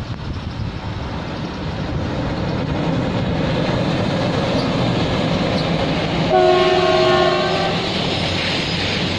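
Indian Railways diesel locomotive hauling a container freight train past close by, its engine running and wheels rolling on the rails, growing louder over the first few seconds. About six seconds in, the locomotive sounds its horn once for just over a second: a steady chord of several tones.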